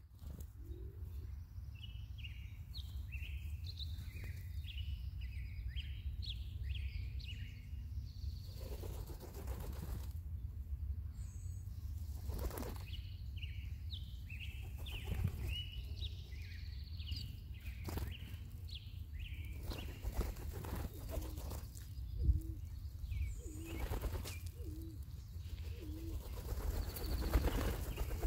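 Band-tailed pigeons' wings flapping again and again as the birds land and flutter, over a steady low rumble, with small birds chirping in short high notes in the background.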